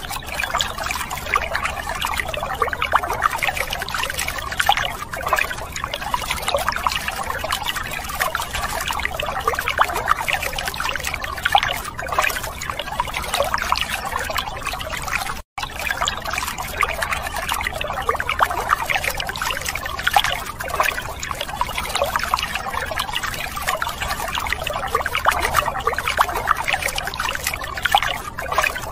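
A thin stream of water splashing steadily onto plastic toy vehicles and the wet floor around them, with a momentary break in the sound about halfway through.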